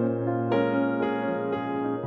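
Background keyboard music, with held piano-like notes changing every half second or so.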